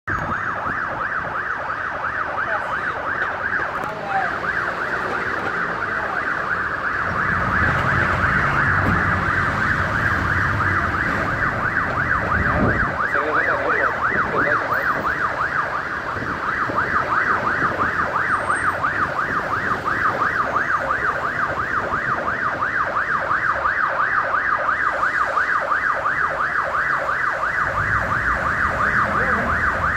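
Motorcycle alarm sounding a siren-like wail, a high tone warbling rapidly up and down without a break, much like a police siren.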